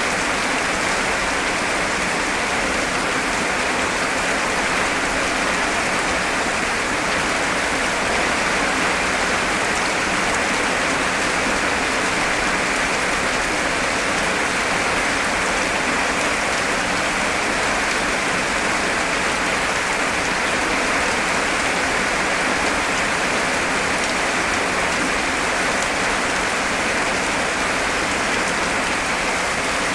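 Heavy rain falling steadily, an even, unbroken hiss of downpour.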